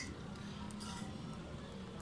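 Small electronic parts being handled by hand: a few faint clicks and rustles about a second in, over a steady low hum.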